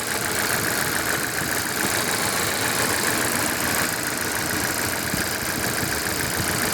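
The Volvo XC90 PHEV's four-cylinder petrol engine idling steadily, an engine the owner suspects of a failed head gasket.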